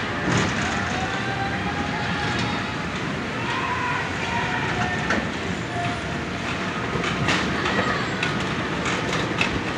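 Steady rush of churning water in the kiddie canoe ride's pump-fed trough, with scattered clicks and knocks, more of them in the second half.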